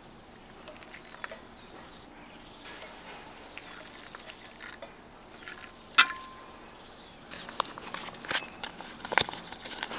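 Water poured from a metal mess tin into a griddle pan of noodles, then a single sharp metallic clink about six seconds in. Irregular crackling follows as a basil sauce pouch is squeezed out over the noodles.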